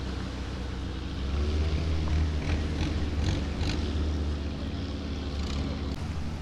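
Longtail boat engine running steadily with a low drone, a little louder from about a second and a half in, with a few short splashes of water.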